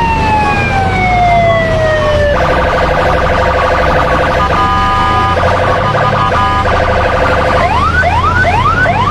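Police car siren sound effect: a wail sliding down in pitch, then a steady blaring chord that breaks off a few times, then rising whoops about twice a second, over a low engine rumble.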